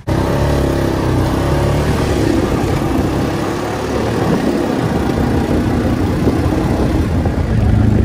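Four-wheeler ATV engine running steadily as it is ridden along.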